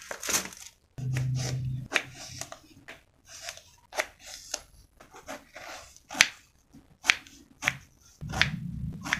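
A kitchen knife cutting through a large eggplant onto a wooden cutting board, giving sharp knocks about once a second. A plastic bag rustles at the start, and a short low hum sounds about a second in.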